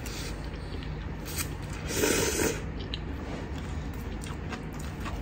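Someone eating spicy instant ramen: a few small clicks, and about two seconds in a short breathy rush of air over the hot noodles.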